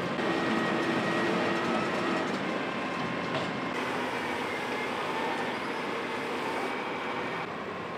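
Tracked asphalt milling machine (cold planer) running, its cutting drum grinding off the road surface: a steady mechanical grinding noise with faint high whining tones, easing slightly near the end.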